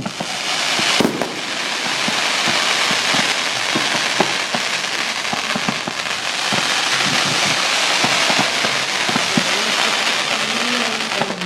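Fireworks crackling: a dense, steady fizz of countless small pops, with one louder bang about a second in.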